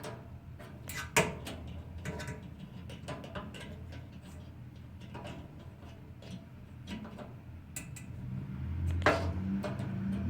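Scattered clicks and light taps of multimeter probes and wires being handled against a dryer heating element's terminals, with no continuity beep: the element is open. A low hum swells near the end.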